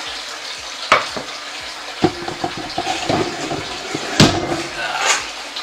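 Kitchen clatter of a cooking pot being carried and set down, with sharp knocks about one and two seconds in and a louder one about four seconds in, over a steady hiss of running water.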